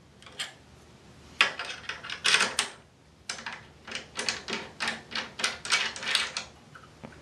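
Quick clicks and knocks from a rod holder being handled and fitted to its base plate. They come in two runs, a short one about a second and a half in and a longer one of several clicks a second near the middle.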